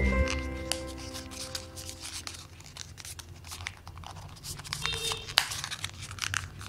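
Paper crinkling and crackling as fingers fold and press a red paper boat: short, sharp crackles, one louder snap about five seconds in. Background music rings out and fades over the first two seconds.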